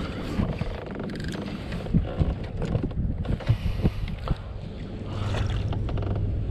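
Water lapping and sloshing against a fishing kayak's hull, with a few sharp knocks and taps in the middle.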